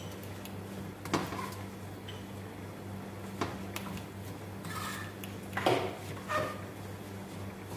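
Metal spoon stirring and scraping vermicelli being toasted in a small frying pan, with a few separate clinks against the pan. A steady low hum runs underneath.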